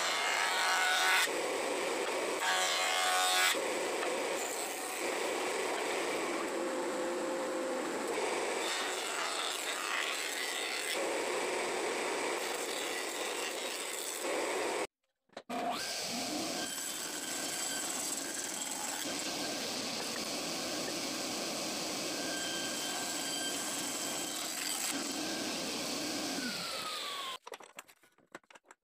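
Fanfer electric jointer planing hardwood boards fed over the cutterhead with a push block, the cutting noise changing from pass to pass. After a brief break, a second woodworking machine, seen next as a table saw, runs steadily for about twelve seconds. Its pitch slides down as it spins down near the end.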